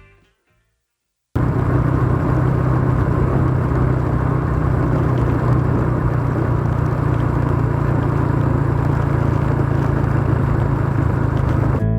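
Car driving along a road, a steady rumble of engine and tyre noise with a constant low hum. It cuts in suddenly after a moment of silence about a second in and runs without change.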